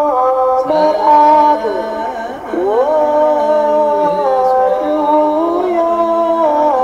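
Ethiopian Orthodox liturgical chant: voices singing long, drawn-out notes that step and slide slowly in pitch, with no drum.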